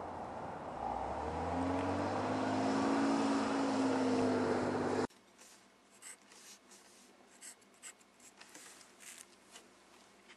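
A passing vehicle's engine, growing louder and then cut off abruptly about five seconds in. After that, a pencil scratching in short strokes as it writes on a notepad.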